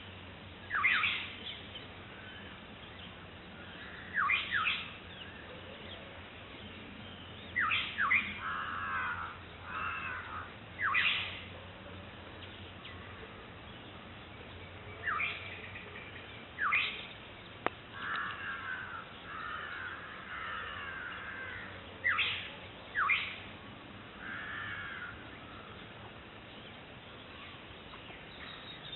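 Black-headed oriole calling to its chick: harsh, sharply falling calls, often in quick pairs, repeated every few seconds, with softer wavering calls between them.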